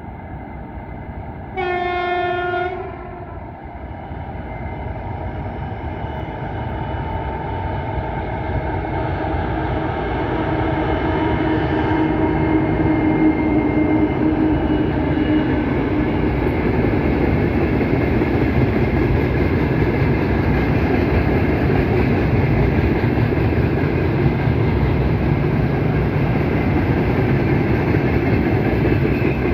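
A 2TE116 twin-section diesel locomotive sounds one horn blast of about a second, near the start. Its diesel engines then grow louder as it approaches and passes. After that comes the steady noise of freight wagons, hoppers and tank cars, rolling past.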